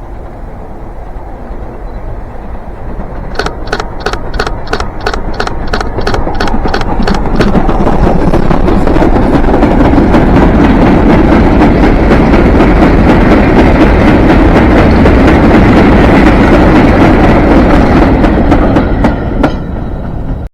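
A train on a heritage railway approaching and passing close by, building to a loud steady rumble. A run of regular sharp beats, about four a second, comes a few seconds in, and quicker rhythmic clicks from the wheels come near the end.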